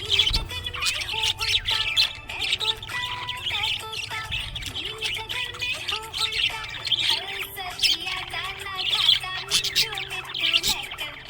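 Budgies chirping and chattering in a rapid, continuous stream of high chirps and squawks, over background music.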